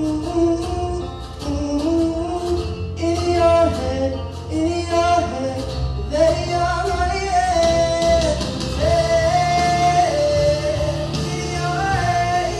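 Male solo voice singing a rock ballad, holding long notes and sliding between them, over instrumental backing with a steady low bass.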